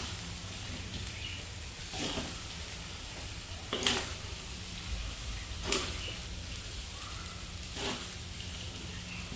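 A cooking utensil knocking against a pan four times, about two seconds apart, over a steady hiss of cooking.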